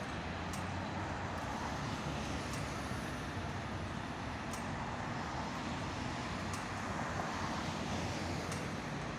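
Steady road traffic, cars passing close by, with a faint high tick about every two seconds.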